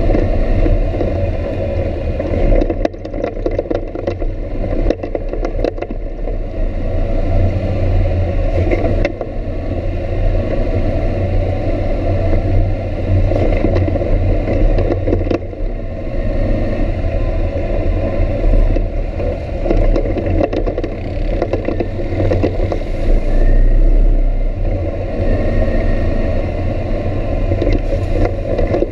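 Off-road vehicle's engine running steadily as it travels over a rough dirt trail, with scattered knocks and rattles from the bumpy ground.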